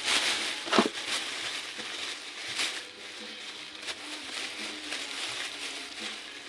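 Irregular crinkling and crackling with a few sharp knocks, as of something being handled or pried at, over a steady hiss.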